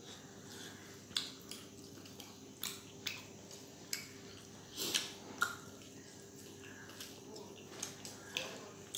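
Eating sounds of people eating rice and curry with their hands: irregular short wet smacks and squishes of chewing and of fingers working rice, over a faint steady hum.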